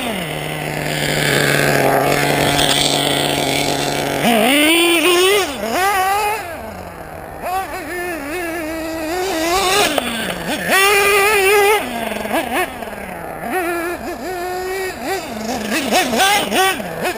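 LRP ZR.30 nitro engine of a Team Associated RC8 1/8 buggy, geared with an 18-tooth clutch bell. It holds a steady lower note for about the first four seconds, then revs up and down over and over in a wavering whine as the buggy is driven around.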